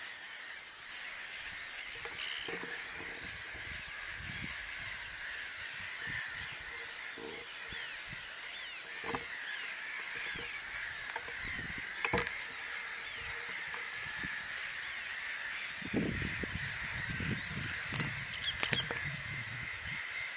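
Lakeside wildlife calling without a break: a dense, steady chorus dotted with many short chirps. A sharp click about twelve seconds in and a few low bumps near the end.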